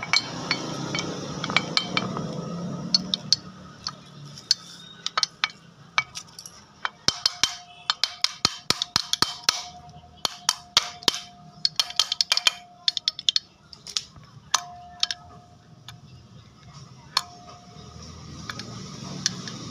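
Sharp metallic clinks and taps of hand tools and engine parts being handled on a workbench, coming thick and fast in the middle stretch. A faint ringing tone sits under some of them.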